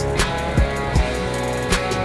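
Background music: guitar over a steady drum beat with a thumping kick drum.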